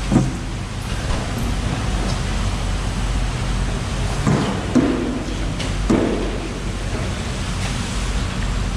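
Steady background rumble and hiss, with a few brief faint sounds about four and six seconds in.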